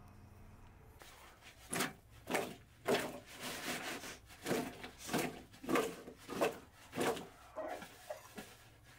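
Potato slices being tossed and stirred by hand in a large metal bowl: rhythmic swishing, scraping strokes about two a second, starting a couple of seconds in.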